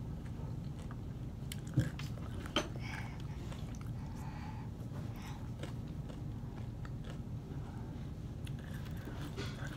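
Close-up mouth sounds of chewing crab ceviche and crunchy tostada, with scattered small crunches, the two sharpest about two and two and a half seconds in, over a steady low hum.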